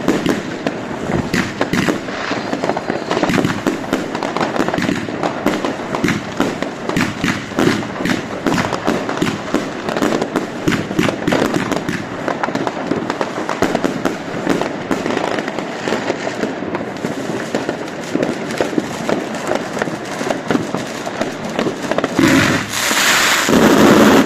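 Fireworks going off: a dense, continuous stream of sharp bangs and crackles, many overlapping. Near the end comes a louder rushing hiss lasting about a second and a half.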